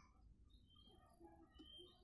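Near silence: faint room tone with a few faint, short, high chirps.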